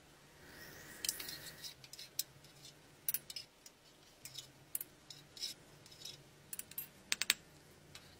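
Metal spoon scraping and tapping in an electric solder pot while skimming slag off molten pewter: irregular short scrapes and clicks, with a quick cluster of sharp clicks about seven seconds in, over a faint steady hum.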